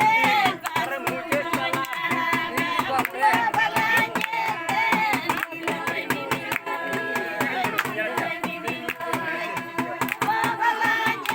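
Music: singing over a steady beat of sharp percussive strokes.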